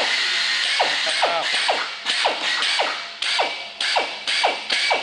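Power drill run in short trigger bursts, about two a second, while drilling out the heads of rivets in an aircraft wing.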